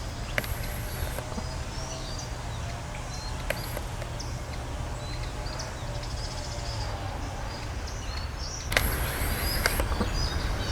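Several small birds chirping in short, sliding notes over a steady low rumble, with a brief burst of rushing noise near the end.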